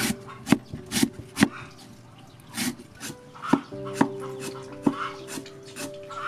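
A cleaver chops lemongrass on a wooden chopping block, each chop a sharp knock. The knocks come in irregular clusters of two or three, with a pause near the middle. Soft background music plays underneath.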